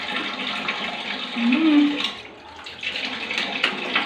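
Kitchen tap running steadily into a sink while hot boiled eggs are being peeled. A brief hummed sound from a person's voice comes about a second and a half in and is the loudest moment.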